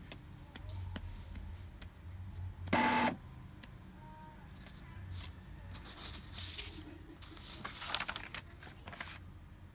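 Epson L3150 ink-tank printer working through a power cleaning cycle, flushing ink through the print head to clear clogged nozzles: mechanical whirring and clicking from its carriage and ink-pump mechanism, with one short loud motor burst about three seconds in and a cluster of clicks and whirs near the end.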